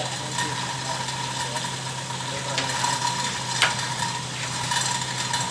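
A steady mechanical hum with hiss, broken by two sharp clicks near the middle, about a second apart.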